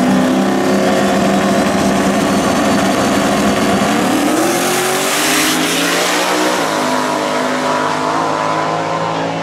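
Car engine held at high revs, its pitch climbing about four seconds in and easing down a little near seven seconds. A loud hissing rush joins it around the middle.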